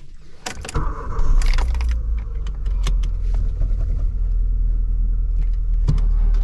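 Ford Ka hatchback heard from inside the cabin while driving: engine and road rumble that builds about a second in and then holds steady, with a few light clicks and rattles on top.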